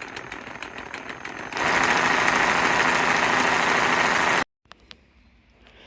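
Metalworking power tool noise: a fast, even crackling buzz, then about a second and a half in a louder steady hiss with a faint whine, which cuts off abruptly.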